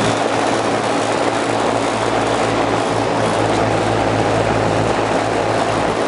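Rooftop packaged A/C unit running: condenser fans blowing air through their top grilles over a steady low electrical hum from the compressors and motors.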